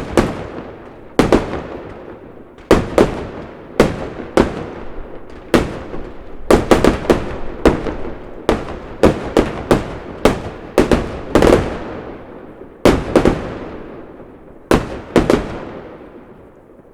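Fireworks display: a string of sharp aerial bursts at irregular intervals, often two in quick succession, each bang trailing off in an echo. The bursts come thickest in the middle and thin out near the end, where the last one dies away.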